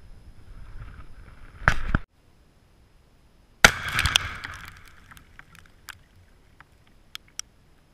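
Tannerite binary explosive target detonating: one sharp, loud blast about three and a half seconds in, with a rough rumbling tail and a few scattered ticks after it. Before it, close rustling and handling noise cuts off about two seconds in.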